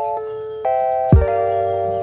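Background music: bell-like keyboard chords held in steps, with a deep kick-drum thump about a second in.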